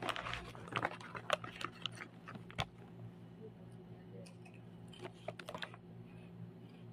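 Plastic bag crinkling and snack chips rattling as hands dig into a bag of round puffed chips: a quick run of sharp crackles over the first two and a half seconds, then a shorter run about five seconds in.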